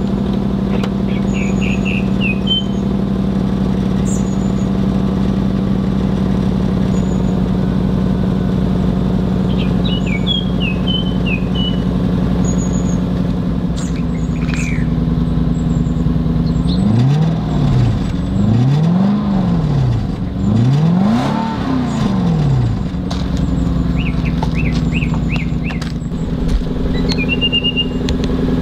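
2004 Lexus SC 430's 4.3-litre V8 idling steadily at the exhaust, then revved three times in quick succession about two-thirds of the way in, each rev rising and falling in pitch, before settling back to a steady idle.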